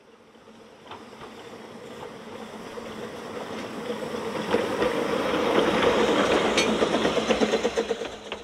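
Narrow-gauge steam locomotive hauling a train of wagons past, growing steadily louder as it approaches, with rapid exhaust beats and wheel rumble at its loudest. The sound cuts off suddenly at the end.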